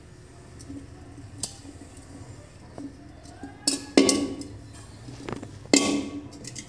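A metal pot full of liquid clanking as it is handled and set down on a concrete floor: a few sharp knocks with a short metallic ring, the loudest about four seconds in and another near six seconds.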